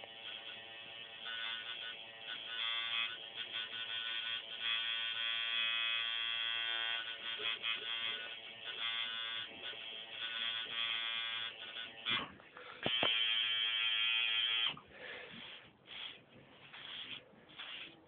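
Electric tattoo machine buzzing steadily as the needle works ink into skin, with a few brief breaks and a louder stretch near the end. It stops about 15 seconds in, and soft rustling and wiping follow.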